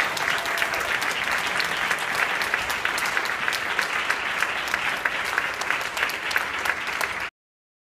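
Audience applauding, a dense steady clatter of many hands clapping that cuts off suddenly near the end.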